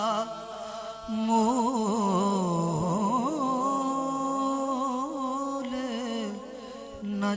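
A man singing a devotional naat in Punjabi into a microphone, with long, wavering held notes. The voice drops away briefly near the start and again near the end.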